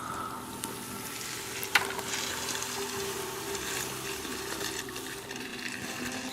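Small forest stream trickling and babbling steadily, with one sharp click or knock about two seconds in.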